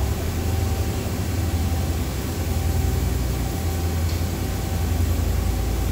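Steady drone of CNC machine-shop equipment running: a low hum with an even hiss and a faint steady whine.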